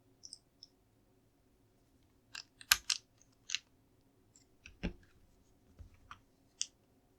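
Plastic LEGO pieces being handled and pressed together: a series of small, irregular clicks and clacks, the sharpest about three seconds in and again near five seconds.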